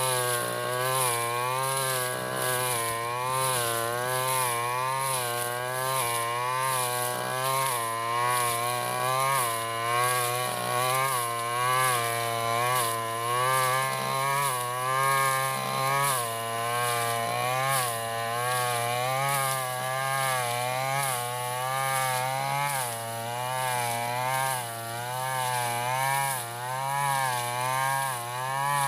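Stihl FR 3001 brush cutter's engine running at high speed while cutting tall grass. Its pitch dips and recovers about once a second as the blade swings through the grass and loads the engine.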